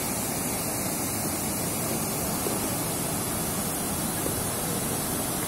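Water pouring over a long stone weir and splashing into the pool below: a steady, even rush of falling water.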